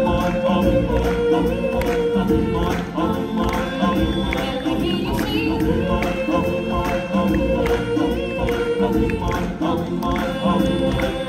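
Live stage-show music: a choir singing long held notes over a steady beat of percussion hits.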